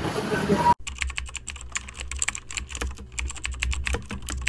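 Keyboard typing sound effect: rapid, irregular key clicks over a low hum, starting abruptly about a second in, in time with on-screen text being typed out.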